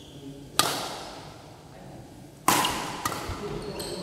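Badminton rackets striking a shuttlecock in a rally, two sharp hits about two seconds apart, the second the louder, each echoing in the hall.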